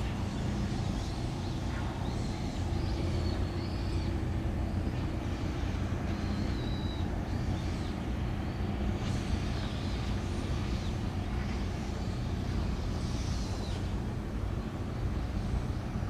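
Steady low engine rumble with a faint hum running under it, and a few faint high chirps over it.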